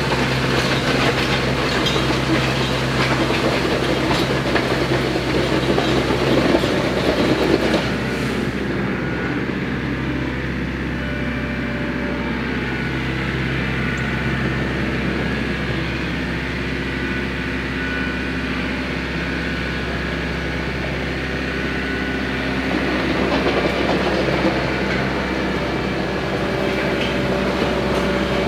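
RK 55 compact diesel tractor running steadily while dragging a land plane through a gravel driveway, the gravel crunching and grinding under the blades. The grinding thins out about eight seconds in as the tractor turns, and builds again near the end.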